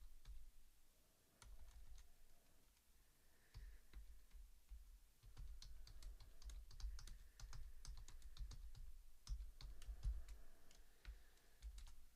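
Faint typing on a computer keyboard: irregular key clicks, sparse at first and coming thick and fast through the second half.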